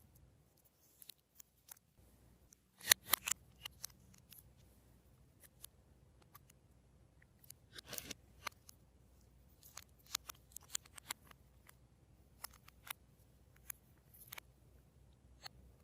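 Glossy slime being pressed and worked by hand, giving scattered sharp clicks and pops. The loudest cluster comes about three seconds in, with more around eight seconds and between ten and fourteen seconds.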